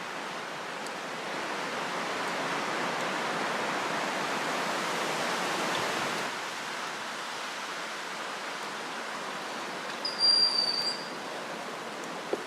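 Steady rushing hiss of wind, swelling in a gust for a few seconds and then easing. About ten seconds in, a short, high whistled note stands out as the loudest sound.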